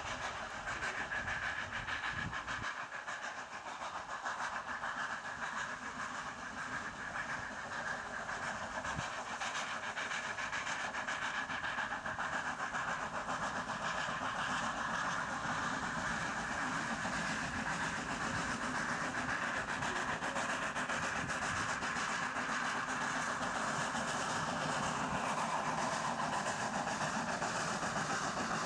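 Two steam tank locomotives hauling a long train of open goods wagons, a steady running noise of engines and wagons on the rails that grows gradually louder as the train approaches.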